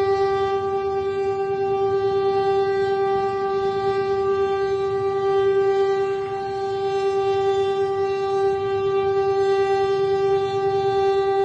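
Diesel locomotive's horn sounding one long, unbroken blast at a steady pitch, warning traffic at a level crossing, over the low rumble of road traffic and motorcycle engines.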